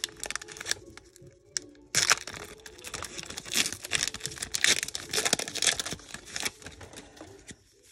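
Foil wrapper of a Pokémon trading-card booster pack being torn open and crinkled, then cards rustling as they are slid out. The crackling starts abruptly about two seconds in after a brief lull.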